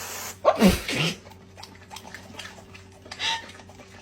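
A pet animal's short call, falling in pitch, about half a second in, followed by scattered light clicks and a brief rustle.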